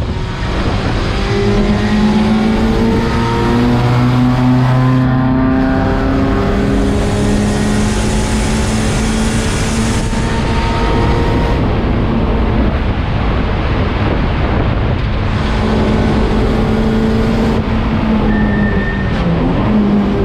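Race car engine running hard at speed, its pitch climbing slowly and then holding, over a steady rush of wind and road noise; the revs dip briefly and pick up again near the end.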